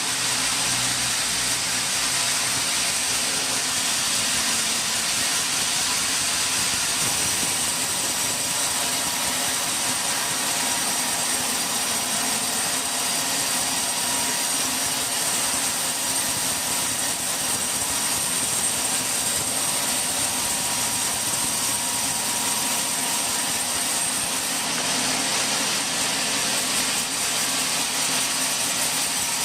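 Teak sawmill machinery running steadily, an even mechanical hiss with a constant high whine.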